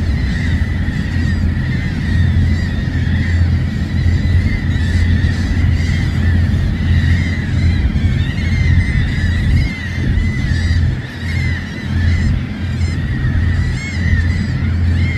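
A flock of gulls and other seabirds calling over and over, short rising-and-falling cries overlapping throughout, above a steady low rumble of breaking surf.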